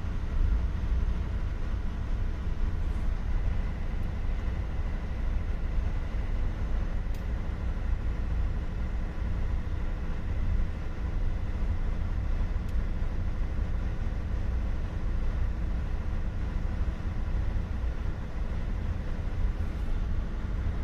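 Steady low drone of shipboard machinery with a constant hum over it.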